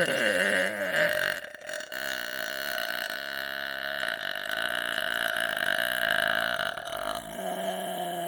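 One long, drawn-out human burp held for about seven seconds, changing in tone about seven seconds in.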